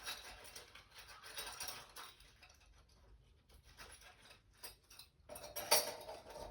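Cardboard box of a new mini blind being opened and its contents handled: faint scattered rustling and small clicks, with a louder rustle near the end.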